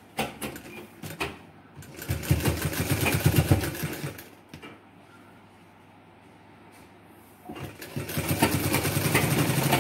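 Sewing machine stitching a pocket onto an apron in two runs: it runs for about two seconds starting two seconds in, stops, then starts again near the end. A few light clicks come in the first second.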